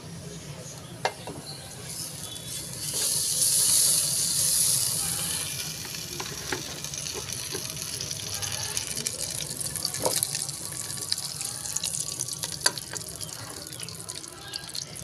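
Hot cooking oil sizzling and crackling in a pot on a gas stove, with many small pops. The hiss is loudest and fullest between about three and five seconds in.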